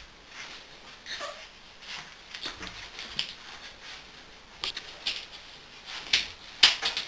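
American Staffordshire Terrier puppies play-wrestling on a blanket: scattered scuffling and clicks, a short falling squeak about a second in, and sharper clicks and scuffles in the last couple of seconds.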